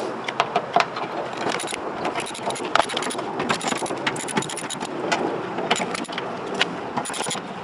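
Irregular clicks, taps and light metallic rattles from hands and tools working at a car door's speaker mount, as the speaker's wiring clips are undone and its bolts are taken out.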